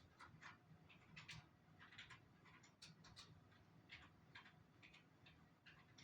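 Near silence with faint, sharp clicks at uneven spacing, a few each second.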